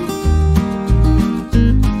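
Background music led by acoustic guitar, with a steady bass beat about twice a second.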